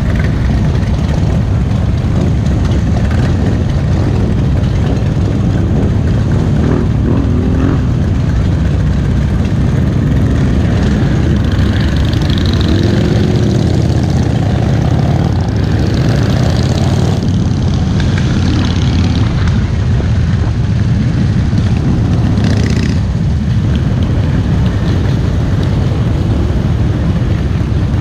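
Motorcycle engines running steadily in a large pack of bikes: the camera bike and those around it idle together, then ride off as a group.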